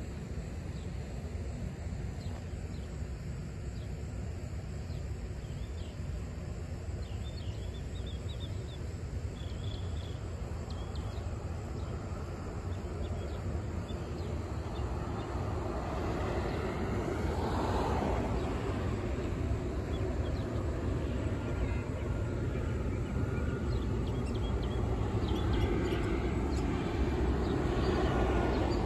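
Jet engines of a Boeing 737-700 airliner on approach, a distant low rumble that grows gradually louder as the plane nears. Birds chirp briefly now and then.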